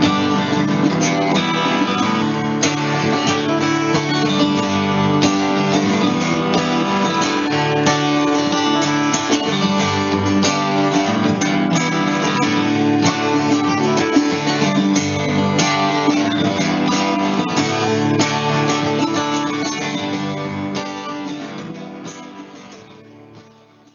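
Acoustic guitar strummed together with a mandolin-type instrument, playing an instrumental folk tune that fades out over the last few seconds.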